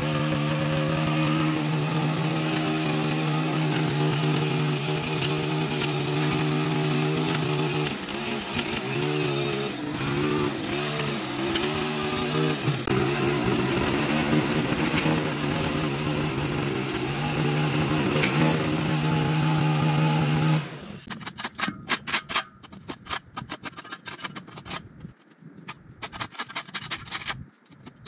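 Small engine of a lawn edger running at high speed, its note wavering as the blade cuts into packed soil over a buried sidewalk. The engine stops about three-quarters of the way in, followed by quick, repeated scraping strokes.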